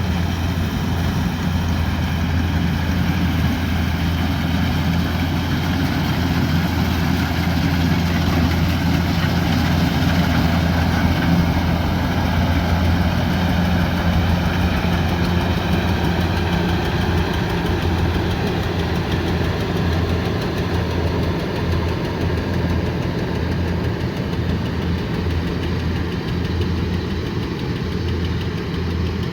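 Kubota combine harvester's diesel engine running steadily, with a deep low hum under the mechanical noise.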